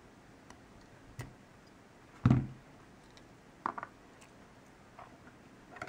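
Small metal clicks and one heavier knock about two seconds in as an opened ASSA oval lock cylinder is handled and set up for disassembly.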